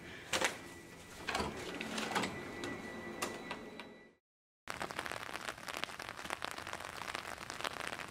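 Knocks and clatter of an office door with an overhead closer being pushed open. After a short break, a dense, steady patter of rain on wet pavement.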